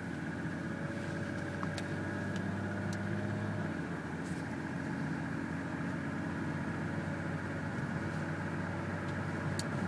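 2007 Lexus ES350's 3.5-litre V6 running steadily while the car is driven, with a very noticeable piston slap from the cold engine. This is a defect that fades once the engine warms up.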